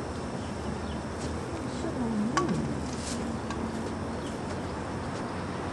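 Steady outdoor background noise with a few short, high chirps, and a brief snatch of voice about two seconds in.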